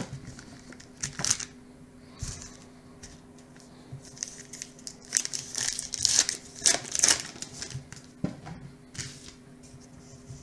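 A baseball card pack's wrapper being torn open and crinkled by hand, in several short rustles, the loudest bunched around the middle, over a faint steady hum.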